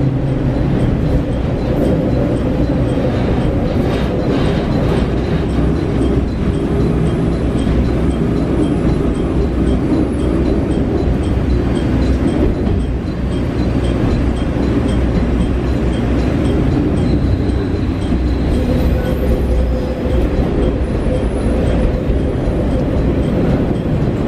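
Inside the cabin of a JR Shikoku KiHa 40 diesel railcar under way: a steady drone of the diesel engine and the wheels on the rails.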